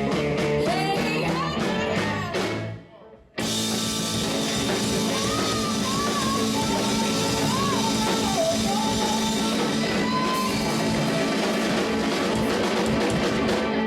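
Rock music with singing, guitar and drums. It drops away briefly about three seconds in, then comes back fuller.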